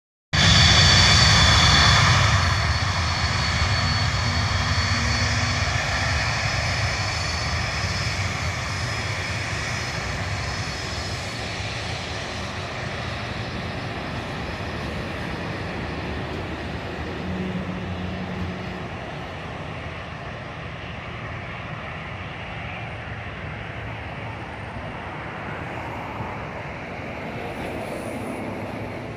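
Boeing 747-400's four turbofan engines at takeoff power during the takeoff roll: a steady jet roar with high whining fan tones. It is loudest at first and fades slowly as the airliner rolls past and away down the runway.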